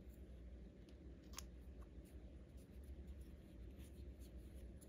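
Faint clicks and light rubbing of a plastic multi-function earbud cleaning pen being handled and pulled apart, with one clearer click about a second and a half in, over a steady low hum.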